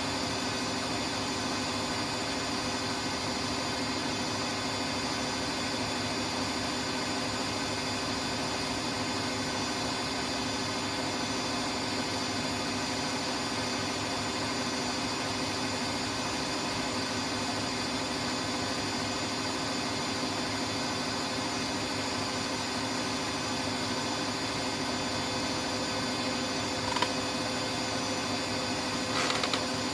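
Siemens Siwamat iQ 716 washing machine running steadily, a constant machine hum and whir with several steady tones. Near the end there is a single click, then a brief cluster of clicks.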